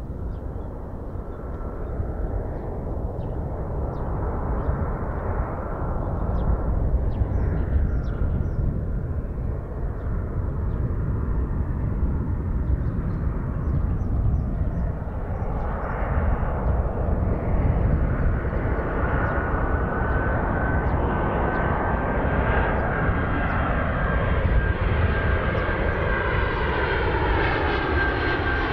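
Japan Airlines Boeing 767-300 twin jet engines roaring as the airliner flies low overhead. The roar grows louder over the first few seconds, and a steady high engine whine comes through strongly in the second half as the plane draws close.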